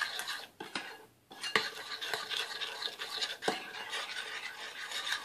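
Spoon stirring and scraping a thick yogurt-based green masala paste around a glass bowl, mixing in salt and tandoori masala powder. There are a few sharp clicks of spoon against glass, and a brief lull about a second in.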